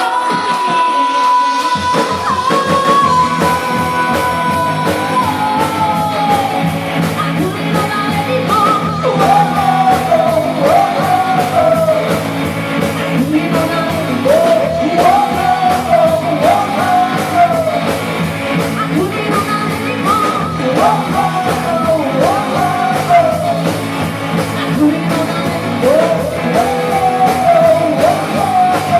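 Live rock band with a lead singer: a held sung note, then drums and bass come in about two seconds in and the vocal carries on over a steady beat.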